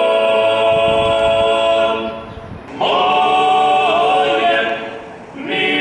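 Background music of a choir singing long held chords: one chord for about the first two seconds, a brief dip, then another held chord with slight pitch movement.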